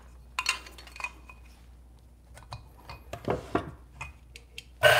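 Light clinks and knocks of small coffee tools being handled on a counter, then near the end a Turin DF64 espresso grinder's motor switches on and runs steadily.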